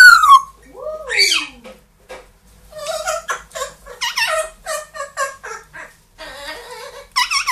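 Pet parrot whistling and calling: a whistle that falls away at the start and a swooping call about a second in, then a run of short repeated calls, about three a second, and a quick burst of calls near the end.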